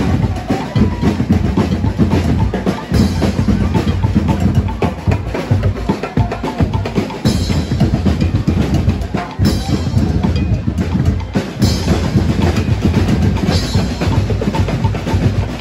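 Loud drumming: bass drums and snare drums beating a steady dance rhythm for street dancing.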